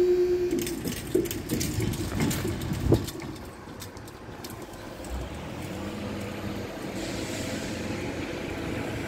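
A level crossing warning alarm tone cuts off about half a second in. Clicks and knocks follow as the barriers rise, with a sharp knock about three seconds in. A steady vehicle rumble then carries on.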